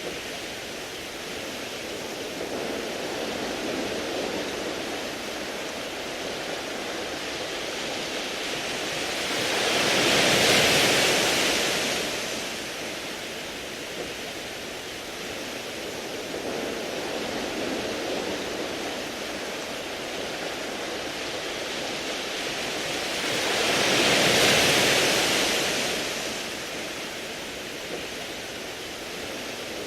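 Sea waves washing onto a beach of smooth round pebbles, a steady wash with two larger waves swelling and breaking, one about ten seconds in and another near the end.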